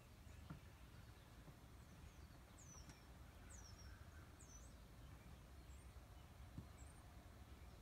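Near silence: quiet room tone, with a few faint, short high chirps near the middle.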